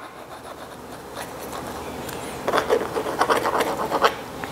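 Wood glue squeezed from a plastic squeeze bottle onto a thin wooden wedge, with rubbing and scratching of the wedge and nozzle. The scratchy strokes grow busier over the last couple of seconds.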